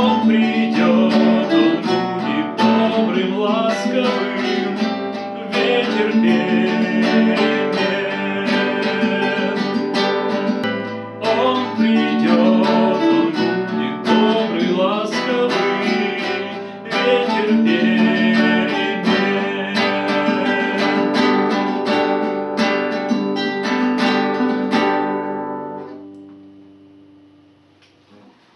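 Acoustic guitar playing the song's accompaniment, plucked and strummed chords; near the end the last chord rings and dies away.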